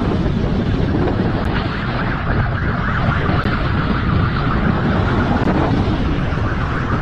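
Motorcycle running at speed, its engine mixed with heavy wind buffeting on the microphone, loud and steady throughout.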